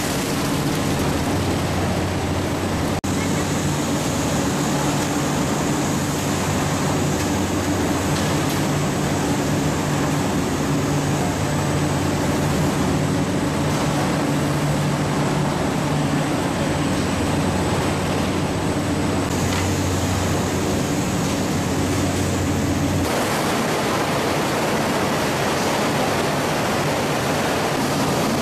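Poultry processing line machinery running: a steady mechanical hum with a rushing noise. The hum drops away about 23 seconds in, leaving a more even rushing noise.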